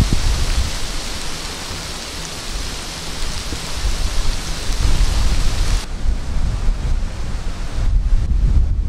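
Steady rain falling, a dense even hiss, with wind rumbling on the microphone. The rain hiss cuts off abruptly about six seconds in, leaving only the gusty wind rumble.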